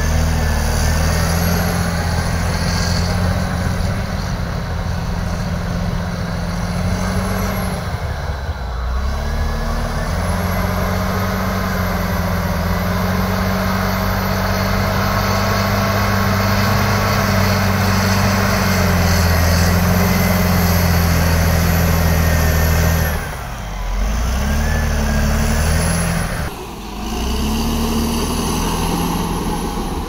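Bulldozer's diesel engine running under load. Its pitch sags and recovers about eight seconds in and twice more near the end, with a high whistle that rises and falls along with it.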